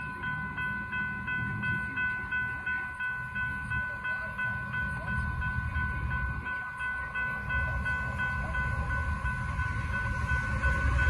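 Railroad grade-crossing warning bell ringing steadily with its gates down, over a low rumble that grows near the end as the freight train approaches.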